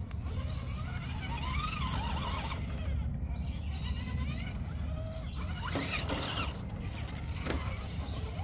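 Electric motor and gears of a scale RC rock crawler whining, the pitch rising and falling with the throttle as the truck climbs a rock face, with a few short knocks of the tyres or chassis against the rock about six and seven and a half seconds in.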